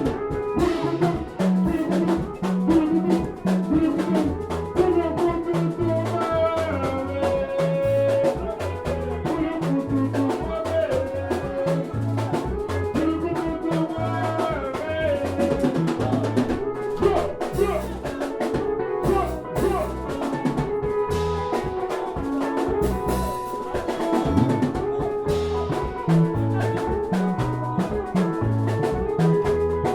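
Dance music with a drum kit keeping a steady beat under a bass line and a melody.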